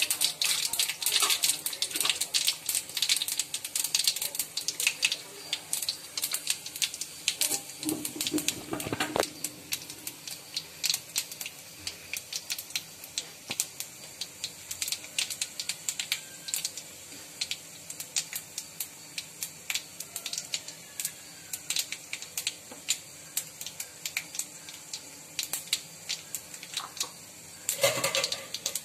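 Mustard seeds, chana dal and urad dal frying in hot oil in a kadai: a steady sizzle with rapid crackling pops, thick in the first few seconds and thinning out after. This is the spluttering of a tempering.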